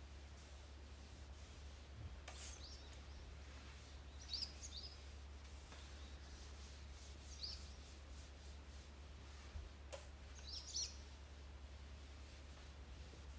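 Faint bird chirps: four short high calls spread a few seconds apart, over a low steady hum.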